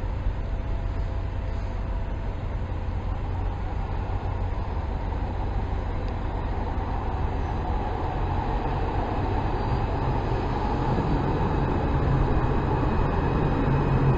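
Alstom Citadis 403 tram approaching and drawing alongside, its running sound growing louder over the second half, with a faint whine near the end. A steady low rumble runs underneath.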